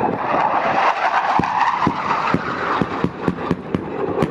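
Steady aircraft engine noise, with a quick, irregular string of sharp cracks from about a second in: simulated gunfire in a staged battle.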